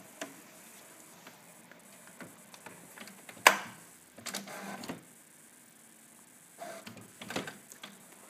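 HP Photosmart C6180 inkjet printer's mechanism working through its print-head cleaning cycle: scattered clicks and knocks, the loudest a sharp click about three and a half seconds in.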